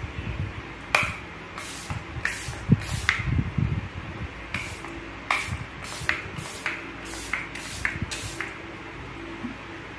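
Pump-spray bottle of makeup setting spray misting the face in about a dozen short hissing puffs, roughly one every half second.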